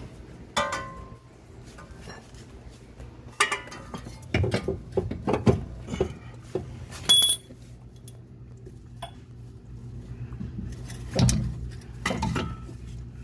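Irregular metal clinks and knocks as a new lower control arm is worked into its suspension mounts under the car, with one short metallic ring about seven seconds in.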